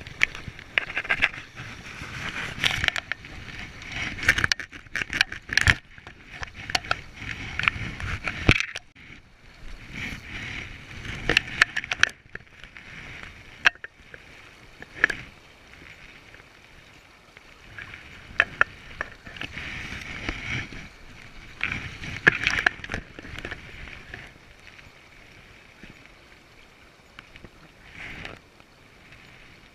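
Irregular water splashing and sloshing with scattered knocks and clicks, busy at first and tailing off near the end.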